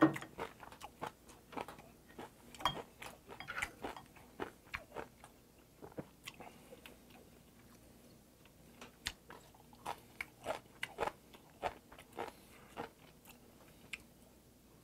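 Close-miked chewing of mustard-leaf kimchi (gat kimchi): irregular wet crunches and mouth clicks, thinning out for a few seconds midway before picking up again.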